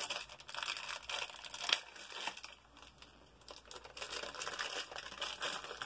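Small plastic packet of an LOL Surprise doll crinkling as it is handled and torn open, with one sharp click about two seconds in and a quieter pause around three seconds in.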